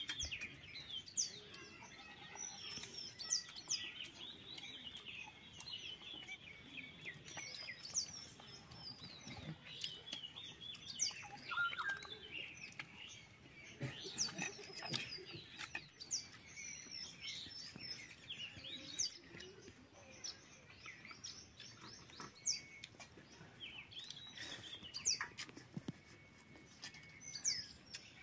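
Small birds chirping and calling, with many short rising and falling whistles overlapping, and occasional faint clicks.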